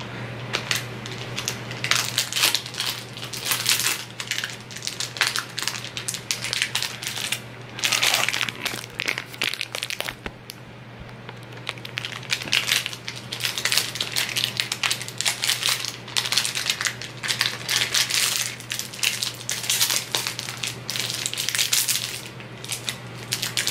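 Plastic protein-bar wrapper crinkling and crackling as it is handled and opened, in irregular crackles with a short lull about ten seconds in.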